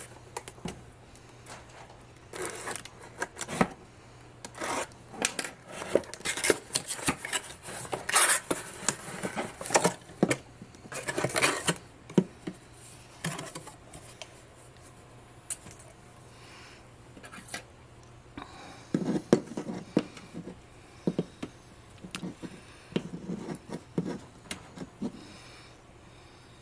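A taped cardboard box cut open with a single-edge razor blade and unpacked: short bursts of scraping, slicing and rustling. In the last third, hard plastic capsule balls are knocked and rubbed as they are handled on a tabletop.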